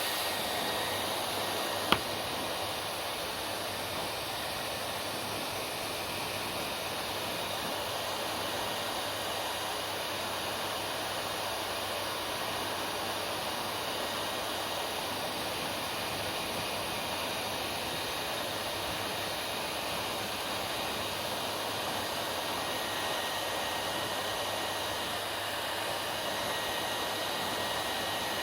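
Hair dryer running steadily, an even rush of blown air with a faint high motor whine. A single sharp click about two seconds in.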